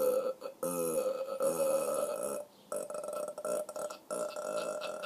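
A long, drawn-out burp, not very loud, broken by a few brief gaps into several stretches.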